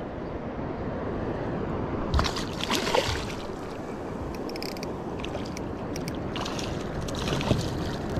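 A hooked fish splashing at the water's surface beside a kayak, in two bouts of splashes about two seconds in and again near seven seconds, over a steady wash of water and wind.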